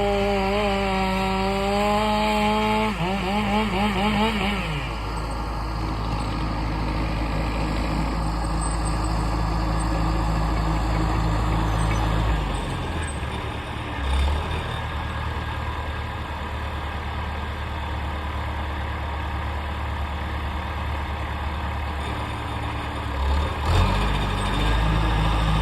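Bulldozer's diesel engine running under load. A higher, wavering engine note over the first few seconds warbles and drops away, leaving a steady low drone whose note shifts a few times, around halfway and near the end.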